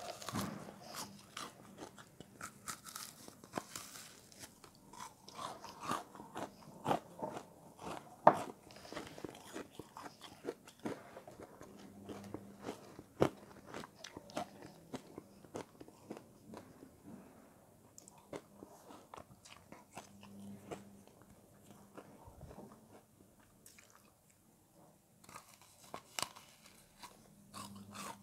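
Close-up crunchy chewing and biting of a frozen foam sponge: irregular sharp crunches, several in quick succession at times, thinning out for a few seconds near the end.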